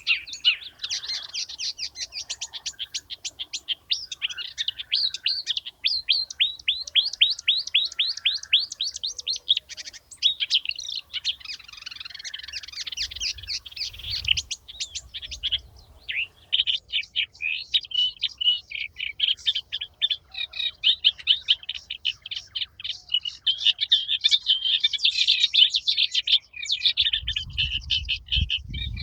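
Small birds chirping in a dense, rapid chatter of short high notes, many a second, with a faint low rumble near the end.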